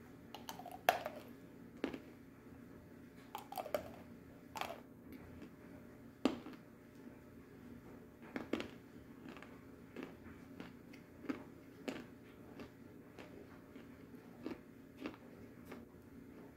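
A person chewing soft edible clay: irregular wet mouth clicks and soft crunches, louder and more frequent in the first half, then lighter ticks.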